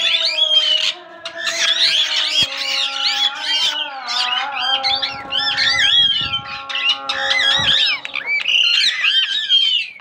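A cage of pet parakeets and conures, green-cheeked conures among them, chattering and squawking in rapid, overlapping high chirps. The calling drops off briefly about a second in and again near the end.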